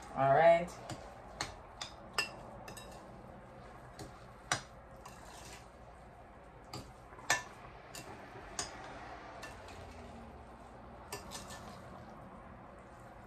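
Hands mixing a rice casserole mixture in a glass mixing bowl, with scattered sharp clinks against the glass.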